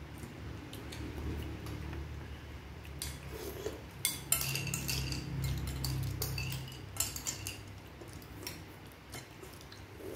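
Metal spoons clinking and scraping against ceramic bowls as people eat, with the sharpest, most frequent clinks through the middle. A low steady hum runs underneath.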